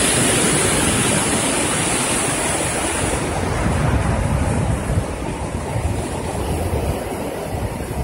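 Ocean surf breaking and washing up a sandy beach, with wind buffeting the microphone; the hiss of the wash eases after about three seconds.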